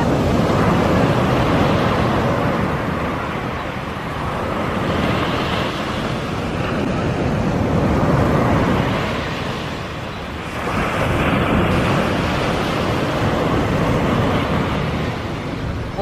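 Sea waves breaking and washing up a sandy beach, the surf swelling and easing every few seconds.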